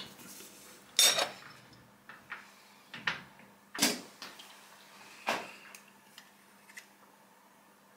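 Metal clunks and clicks from tightening a workpiece in a lathe's four-jaw chuck with a chuck key and handling the tooling, with the lathe stopped. About half a dozen separate knocks, the loudest about a second in, then smaller ticks, over a faint steady hum.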